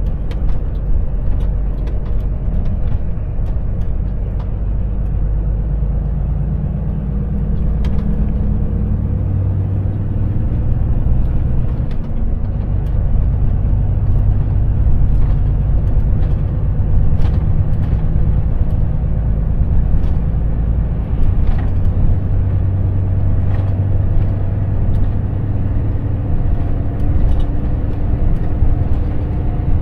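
Volvo FH truck's diesel engine running under way, a steady low rumble whose engine pitch shifts a few times, with scattered light clicks.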